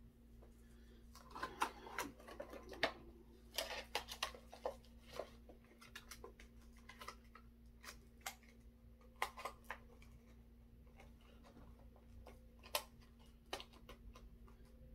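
Hands handling small pieces of fishing tackle: scattered light clicks and rustles of small plastic parts and packaging, busiest in the first few seconds and again around the middle, with one sharper click near the end.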